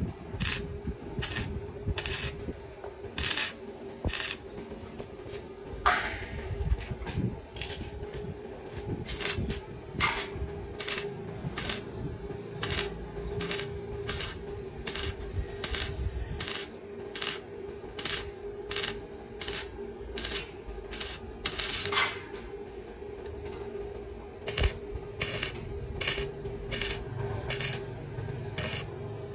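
A regular series of sharp metallic clinks or taps, about one and a half a second, a few of them louder, over a steady hum.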